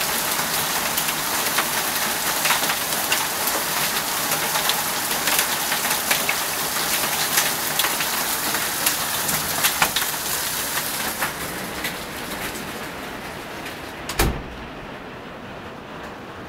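Hailstones and heavy rain pelting down: a dense hiss with many sharp individual strikes. It eases over the last few seconds, and one loud sharp knock about 14 seconds in is followed by a much quieter, duller sound.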